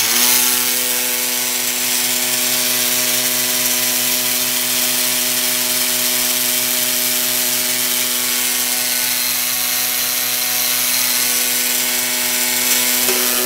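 Makita electric hand sander running steadily with a fixed-pitch hum, strapped to a metal can of carburetor cleaner and shaking the can and its fluid as a homemade ultrasonic-style parts cleaner.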